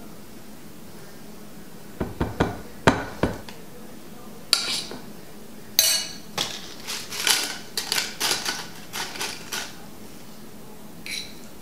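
Kitchen utensils knocking and clinking against a large metal tin can and serving dishes. A few sharp knocks come about two seconds in, then a run of about a dozen short, ringing clinks, and one last clink near the end.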